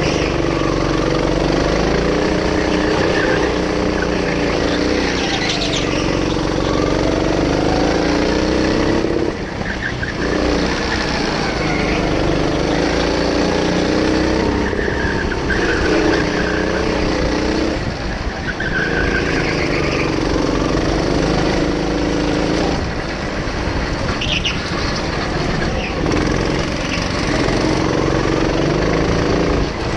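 A go-kart's motor running under the driver's own kart, its pitch rising and falling as the kart speeds up on the straights and eases off for corners, with short drops in level about nine, eighteen and twenty-three seconds in.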